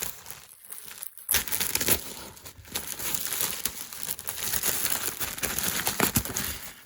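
Packaging crinkling and rustling as a package is torn open and handled, with a brief lull about a second in before the crinkling picks up again.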